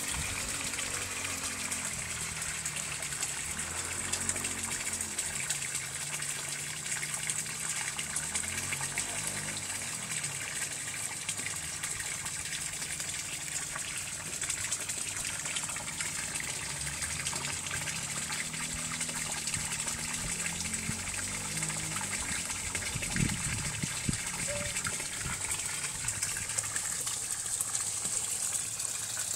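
Steady gushing of running water from a garden pond, with faint low music underneath and a brief low knock about three-quarters of the way through.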